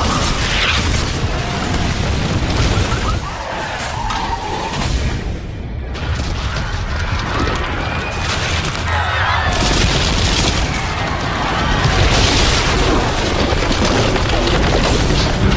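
Disaster-film trailer sound effects: a dense run of explosions, booms and crashing debris over music, with a short lull about six seconds in.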